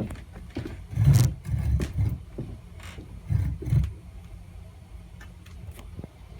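Casablanca Panama ceiling fan running with out-of-shape blades: uneven low rumbling swells, two or three of them in the first four seconds, with scattered clicks and rattles.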